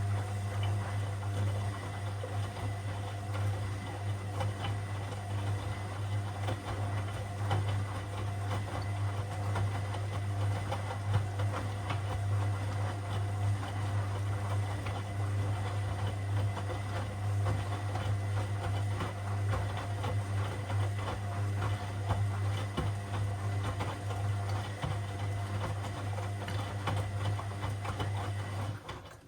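Washing machine running mid-cycle, its motor turning the drum with a steady low hum and a busy rattle of small clicks over it, which stops abruptly near the end.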